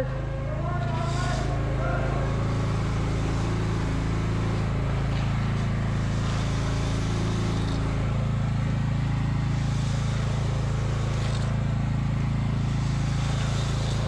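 An engine running at a steady speed, a constant low hum with several steady tones under it. A short bit of a voice is heard at the very start.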